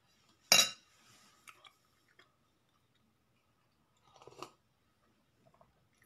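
A sudden loud noise about half a second in, then a man sipping from a mug about four seconds in, a short slurp and swallow.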